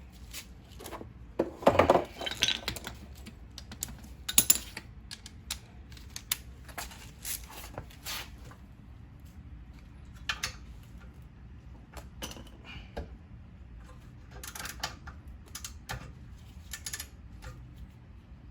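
Scattered metallic clicks and clinks of hand tools being handled and used at the rear brake caliper, where the caliper bolts are being torqued. The loudest cluster comes about two seconds in, with another sharp clink a couple of seconds later.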